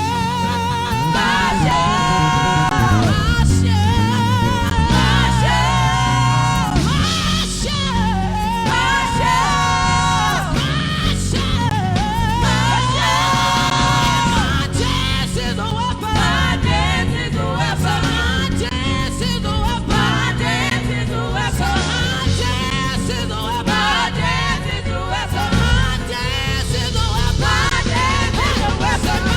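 Live gospel worship band playing with voices singing held, sliding lines over a steady beat.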